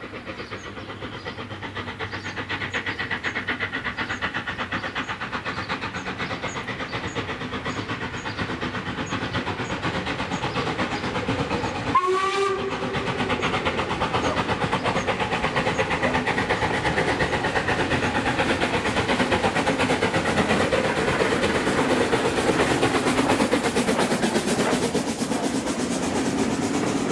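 Steam locomotive working a passenger train toward the listener, its exhaust beats growing steadily louder, with one short whistle blast about halfway through. Near the end the carriages roll past with wheel clatter on the rails.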